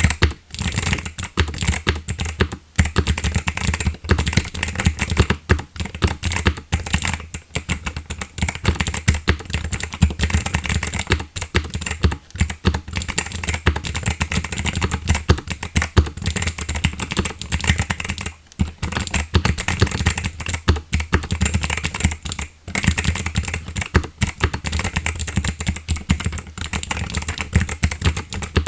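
Continuous fast typing on a GMK67 mechanical keyboard with Kailh Box White clicky switches and DSA keycaps: a dense run of crisp clicks, with a few brief pauses.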